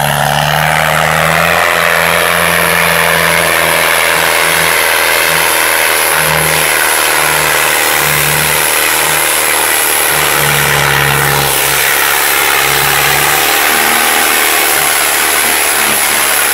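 Diesel farm tractor engine running hard under a heavy pulling load, its note swelling and dipping, with a loud steady hiss over it.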